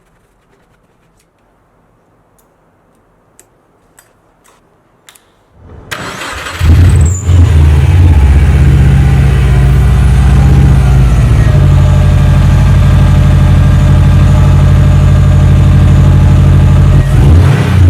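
A few faint clicks, then a Subaru WRX STi's turbocharged flat-four engine cranks and catches about six seconds in and settles into a loud, steady idle.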